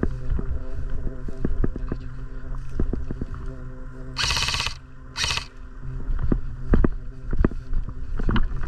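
Scattered sharp clicks and knocks over a steady low hum, with two short hissing bursts about a second apart near the middle.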